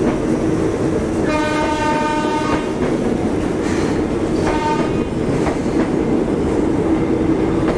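Electric commuter train rolling past close by, its wheels and running gear making a steady loud rumble. A horn sounds for about a second, starting about a second in, and shorter horn blasts come around the middle.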